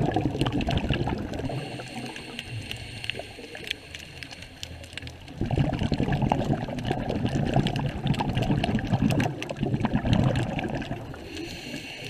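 Scuba regulator breathing underwater: the tail of one exhalation fading in the first seconds, then, about five seconds in, a long gurgling gush of exhaled bubbles that lasts about five seconds.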